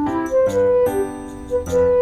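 Instrumental background music: a melody of held notes that shift in pitch about every half second.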